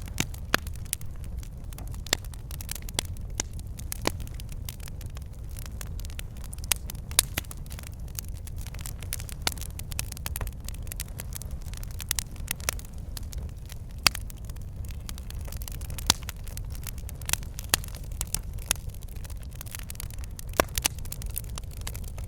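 Wood fire burning in a fireplace: frequent sharp, irregular crackles and pops from the logs over a steady low rumble of the flames.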